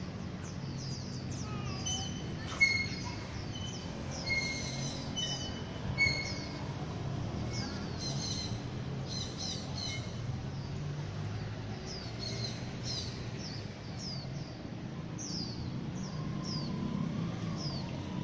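Small birds chirping over and over in short downward chirps, over a steady low hum of distant traffic. A few brief sharp clicks stand out in the first six seconds.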